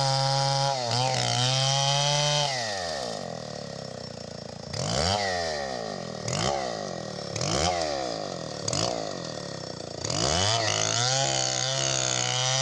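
STIHL 070 two-stroke chainsaw engine held at high revs, then dropping back. It is blipped up and down about four times, then brought back up to steady full throttle near the end.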